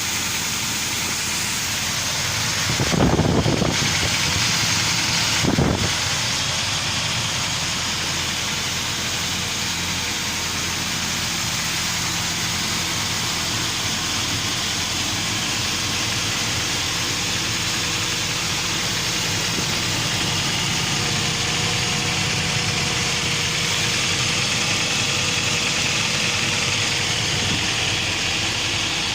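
UAZ Patriot engine idling steadily, recorded for a knock in the engine. Two short, louder thumps come about three and five and a half seconds in.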